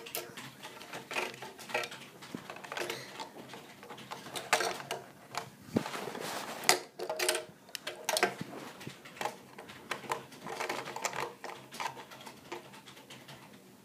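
Hard plastic LEGO and Bionicle parts clicking and clattering irregularly as they are handled and knocked together and against a wooden tabletop, with a few sharper knocks along the way.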